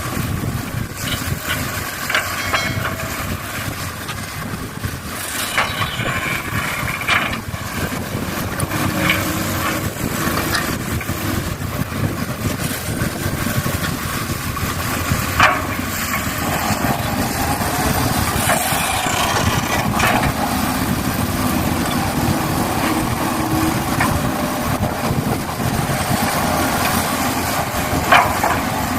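Excavator at work: a steady machine drone with scattered clicks and knocks, the sharpest about halfway through and again near the end.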